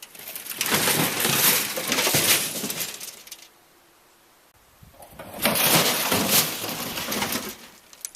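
Large metal toolbox with loose junk inside clattering and rattling in two long crashing bursts of about three seconds each, with a short quiet gap between them.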